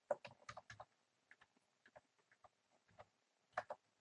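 Faint computer keyboard clicks: a quick run of keystrokes at the start, then a few scattered single clicks, and two in quick succession near the end.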